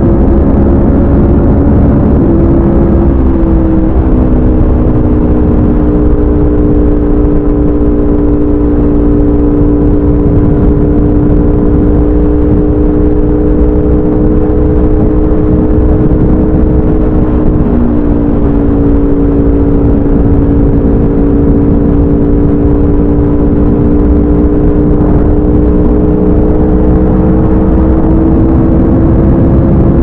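Aprilia RSV4 RF's V4 engine through a de-catted SC Project CRT exhaust, cruising at a steady highway pace. Its note dips slightly in pitch twice, about two seconds in and again a little past halfway, then slowly rises toward the end.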